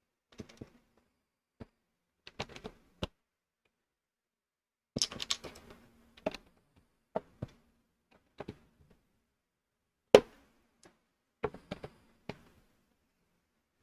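Plastic Lego pieces clicking and rattling as they are handled and pressed together: scattered sharp clicks, a short burst of rattling about five seconds in, and the loudest click about ten seconds in.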